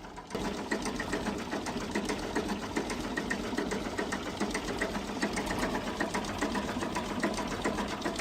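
A small machine running with a steady, rapid mechanical clatter of about five ticks a second. It starts suddenly just after the beginning.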